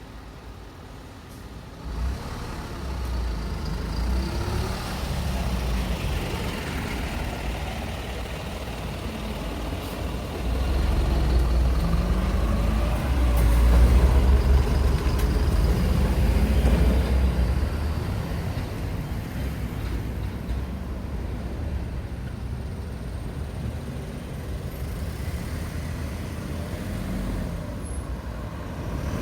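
Road traffic passing: engines of heavy vehicles rumbling, their pitch rising and falling as they pull through. The rumble builds about two seconds in and is loudest around the middle.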